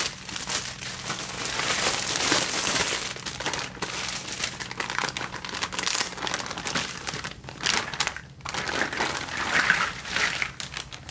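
Thin clear plastic bags crinkling and rustling unevenly as they are handled and opened by hand.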